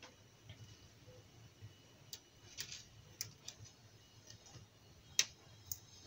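Quiet room tone with a few faint, scattered clicks, the sharpest about five seconds in.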